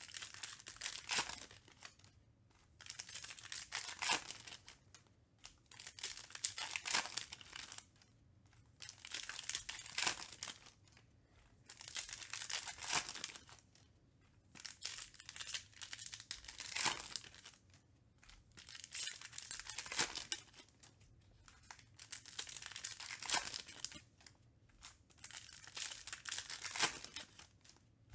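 Foil trading-card pack wrappers crinkling and tearing as packs are opened, with cards handled and set down on a pile, in repeated short bursts of rustling with brief quiet gaps.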